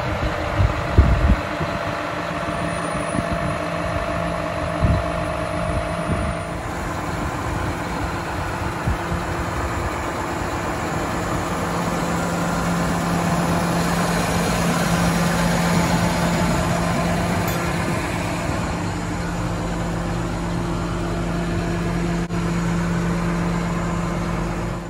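John Deere 6190R tractor's six-cylinder diesel engine idling steadily, with a low hum that grows a little stronger about halfway through.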